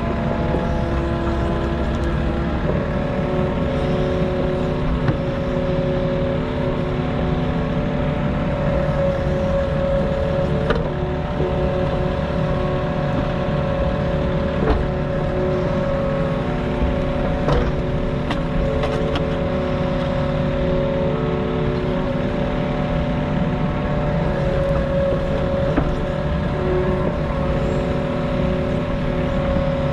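Mini excavator's diesel engine running steadily under hydraulic load while digging, its note shifting up about two and a half seconds in. A few sharp knocks stand out over the engine.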